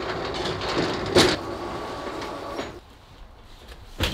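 Roller shutter garage door rolling, a steady rattling rumble that stops near three seconds in. A single sharp knock comes at the very end.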